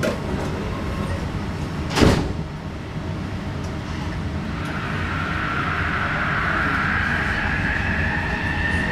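SkyTrain car's linear induction motor whining and rising steadily in pitch as the train pulls out of the station and gathers speed, over a steady low hum. A single loud thump about two seconds in.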